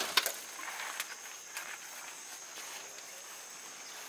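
A few light knocks near the start as the steel drum retort is lifted off the rocket stove, then quiet outdoor background with a faint steady high insect hum.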